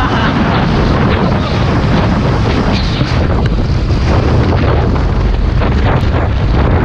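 Loud, steady wind buffeting the microphone, with the speed boat running at speed underneath.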